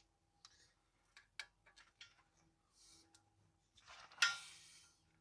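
Light metallic clicks and taps of a brake caliper bolt and hand tools being handled, with one louder metal clink about four seconds in that rings briefly.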